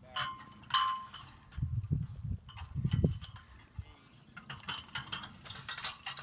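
Metal clanking and rattling of a horse-drawn forecart and its harness as a team of Percheron draft horses pulls it, with a few low thuds in the middle.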